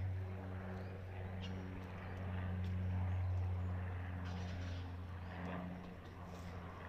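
A motor drones steadily and low, its pitch holding level while its overtones swell and fade, with a few faint ticks over it.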